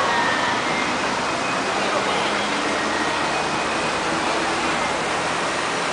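Steady city street noise in a busy pedestrian plaza, with indistinct voices of passers-by mixed into a continuous wash of traffic sound.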